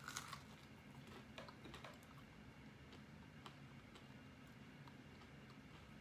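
Near silence broken by a short crunch of a bite at the start, then faint scattered clicks of chewing an air-fried Morningstar vegan chicken nugget.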